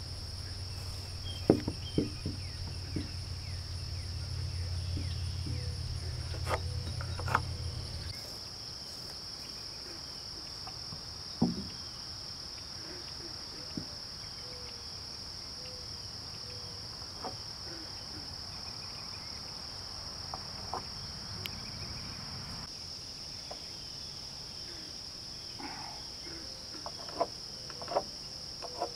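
Insects trilling steadily in a continuous high buzz, with scattered sharp knocks and taps as wooden floor joists and metal joist brackets are handled. A low hum sounds under it for about the first eight seconds, then stops.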